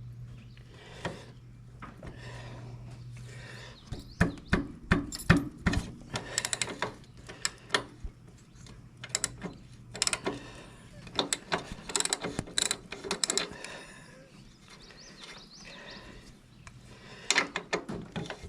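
Hand tools working on a motorcycle's engine mounts: irregular metallic clicks, clanks and ratcheting as the mount caps are taken off. They come in bursts from about four seconds in and again near the end, over a low steady hum that fades after the first few seconds.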